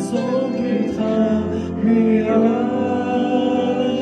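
Man singing a worship song into a microphone, his voice amplified through loudspeakers over backing music, with held, gliding notes.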